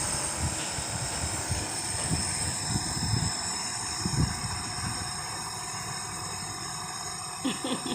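Nebulizer's air compressor running with a steady hum and hiss, with a few soft low thumps in the first half.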